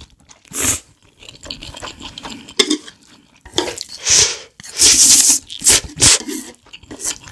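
Close-miked eating of saucy instant noodles: a run of short, loud slurps with chewing between them, coming thickest in the second half.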